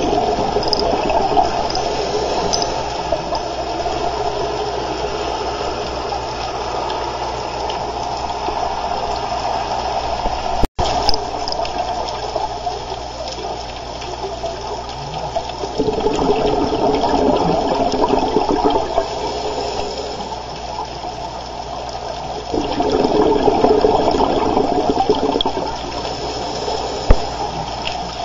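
Underwater sound of a scuba diver breathing through a regulator: exhaled air bubbling out in louder gushes of about three seconds, several seconds apart, over a steady watery rumble.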